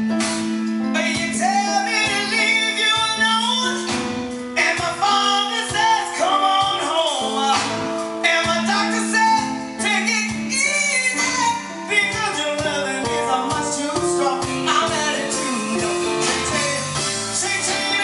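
Soul cover song with a lead vocal over keyboards and a steady beat.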